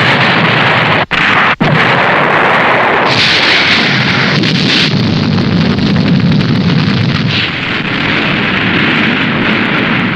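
Tokusatsu film sound effects: a continuous loud rush of explosion and fire blasts, cut short twice by brief gaps about one and one and a half seconds in, then running on as one long noisy blast whose weight shifts from a hiss to a deeper rumble partway through.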